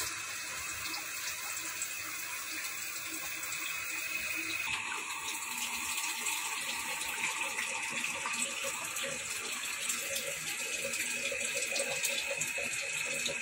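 Water pouring into a cooking pot of tilapia and eggplant pieces. About five seconds in the sound changes and small pops come through as the liquid in the pot bubbles.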